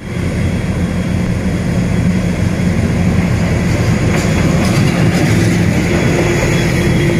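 D18E diesel-electric locomotive running close by with its engine working as it hauls a freight train past. Steady loud low engine hum, with wheels clicking over the rails as the locomotive goes by about four seconds in.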